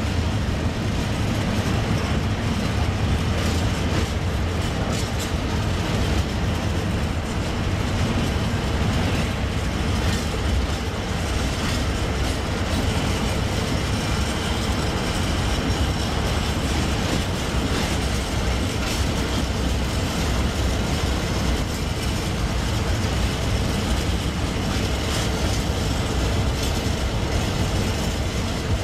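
Container freight train's loaded flat wagons rolling steadily past: a continuous rumble of steel wheels on the rails.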